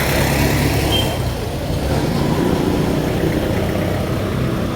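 Road traffic with a heavy vehicle's engine running close by. A high hiss fades out about a second in.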